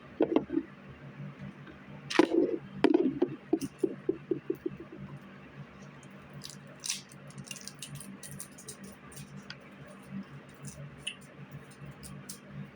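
Small plastic items being handled: scattered light clicks and taps, over a steady low hum.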